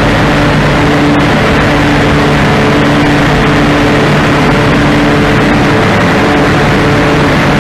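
Water-curtain paint spray booth running: water sheeting down the back panel with a steady rushing noise, over the steady low hum of the booth's motors.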